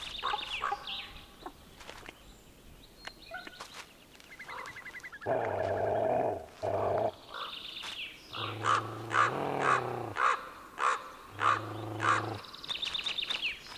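Grey wolves growling and whining, with a run of short harsh calls, about two a second, in the second half.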